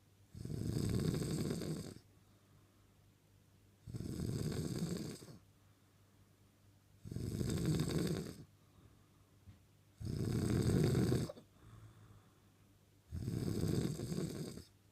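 Someone asleep and snoring steadily: five loud snores, about one every three seconds, each lasting about a second and a half, with quiet gaps between.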